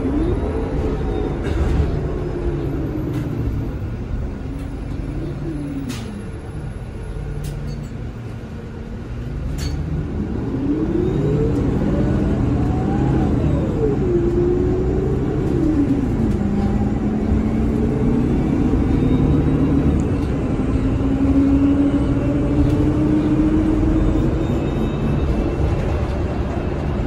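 Inside a NovaBus LFS CNG city bus: its Cummins L9N natural-gas engine and Allison six-speed automatic transmission, with a steady low rumble under a whine. The whine falls as the bus slows, then about ten seconds in the bus pulls away, the whine rising in pitch and dropping sharply at each of two upshifts, then climbing slowly. A few faint rattling clicks.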